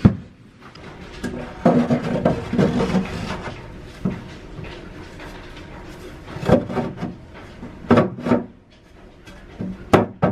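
Fibreglass bow thruster tunnel tube being handled and pushed into the hole cut in a fibreglass hull. It scrapes and rubs against the cut edges, then gives a few separate sharp knocks as it is worked into place.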